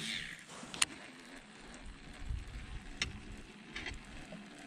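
A few sharp clicks and taps from handling a baitcasting rod and reel: one about a second in, another about three seconds in, and a short run of clicks just before the end, over a faint low rumble.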